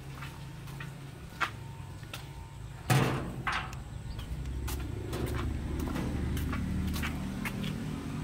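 Footsteps on concrete with a sharp clatter and brief ring about three seconds in, then a smaller knock. A low steady rumble runs underneath and grows louder in the second half.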